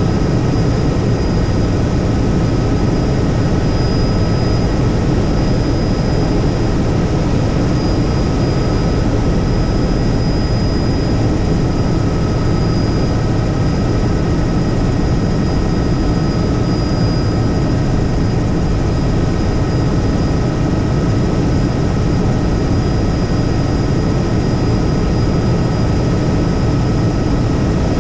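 Helicopter in flight: steady, loud rotor and engine noise with thin high whines running over it.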